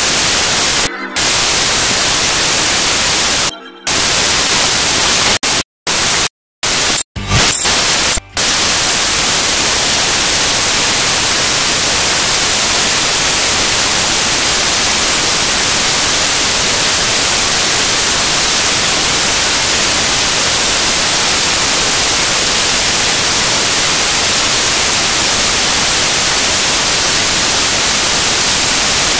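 Loud, steady static hiss filling the sound track, with no speech or music. It drops out abruptly several times in the first eight seconds, then runs on unbroken.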